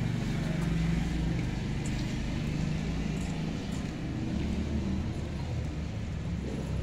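Steady low rumble of a motor vehicle engine running nearby, with street background noise.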